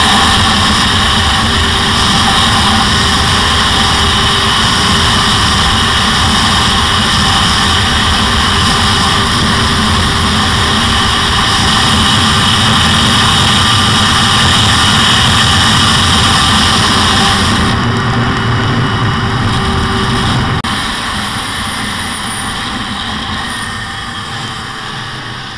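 Arctic Cat snowmobile's two-stroke engine running steadily at speed, heard from on the sled. Roughly three-quarters of the way through it eases off and the sound fades toward the end.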